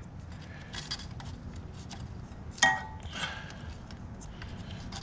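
Small clicks and light plastic handling noises of an electrical connector being fitted onto the intake's sensor, with one sharper click and a brief squeak about two and a half seconds in.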